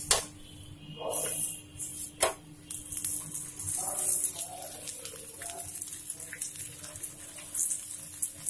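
Aloo paratha sizzling in oil on a hot nonstick tawa, a hiss that swells about a second in and again from about three to four seconds. A spatula clicks against the pan at the start and once more about two seconds in.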